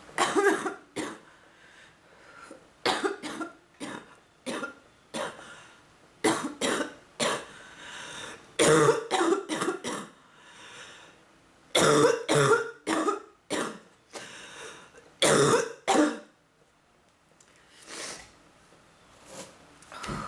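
A woman with bronchitis coughing in repeated fits: clusters of loud coughs every few seconds, tailing off to a couple of lighter coughs near the end.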